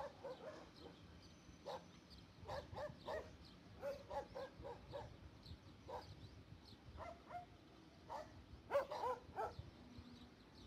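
Dogs barking and yelping in short clusters, over a faint low rumble.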